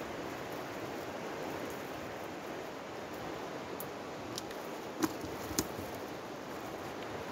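Fish being shaken out of a cast net into a plastic bucket: rustling, with two sharp knocks about half a second apart a little past the middle, over a steady rushing hiss.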